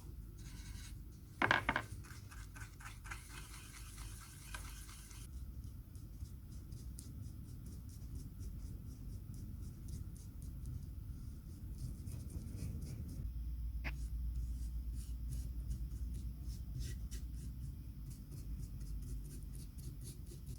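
Light hand-work scraping and rubbing, with many small ticks and a short loud knock about a second and a half in.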